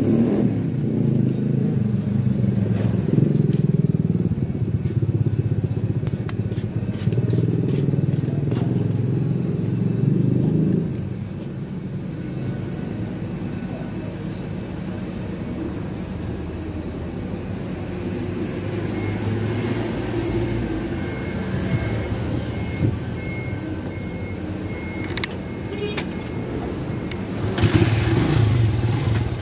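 Engine of a small motor vehicle running, heard from on board while riding. It is louder for the first ten seconds or so, then quieter, and picks up again near the end.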